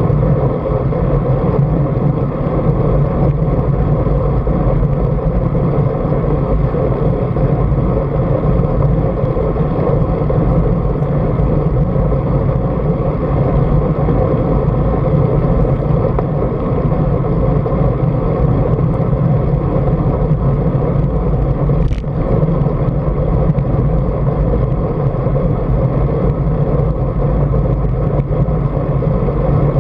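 Steady wind noise rushing over the microphone of a camera mounted on a moving road bike, with the hum of tyres on tarmac mixed in. A single short click sounds about 22 seconds in.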